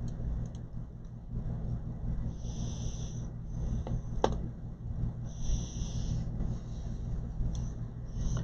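Steady low hum with soft breathing close to the microphone every few seconds, and a single sharp click about four seconds in.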